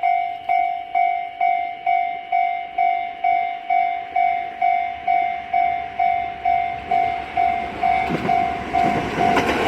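Japanese railway level crossing warning bell ringing steadily at about two strikes a second. In the last couple of seconds the rumble of an approaching train rises under it.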